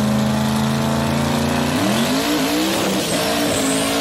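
Car engine running at a steady speed, then revving up about two seconds in, its pitch rising and wavering.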